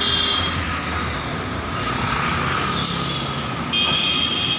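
Steady road traffic noise, with a short high-pitched tone at the start and again near the end.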